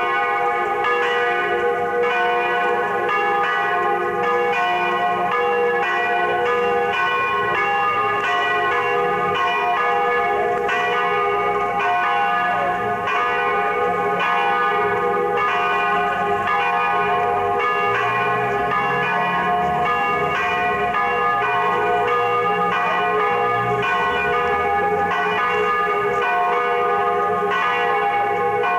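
Church bells ringing steadily from a stone church tower: several bells sounding together in a continuous peal, strokes overlapping and ringing on.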